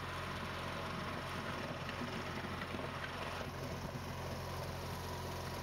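Garden tractor engine running steadily under load while it pushes snow with a front plow blade.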